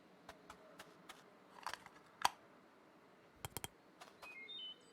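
Quiet, scattered small clicks and taps, with a quick cluster of clicks past the middle, followed near the end by a few brief high chirping tones.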